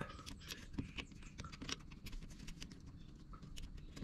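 Faint, irregular clicks and scrapes of a screwdriver prying the wire connectors off a treadmill's small circuit breaker, metal tip ticking against the terminals and plastic housing.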